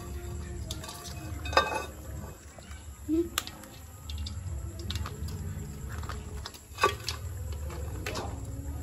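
Aluminium steamer pot and lid clanking and scraping as the lid is lifted off and set back, with live mud crabs scrabbling against the metal. A few sharp metallic knocks stand out over a steady low hum from the heating pot.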